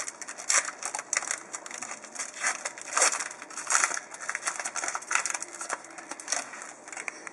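Foil trading-card pack wrapper being torn open and peeled off the cards, a run of irregular crinkling and crackling rustles.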